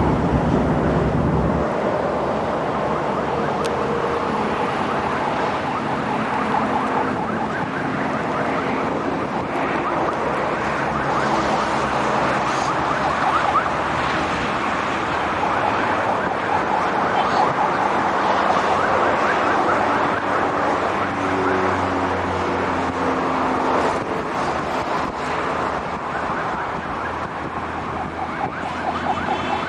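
Road traffic on a highway: buses and cars running and passing, a continuous mixed noise with a wavering warble through it.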